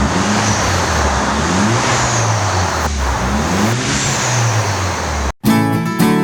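A car engine revving up and down several times over a steady rumble. It cuts off suddenly near the end, and strummed acoustic guitar music begins.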